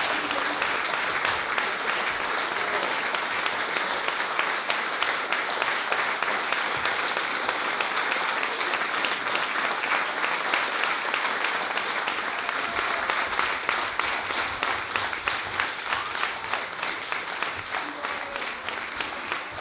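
Live audience applauding in a hall: dense, sustained clapping, with the claps coming more evenly and rhythmically near the end.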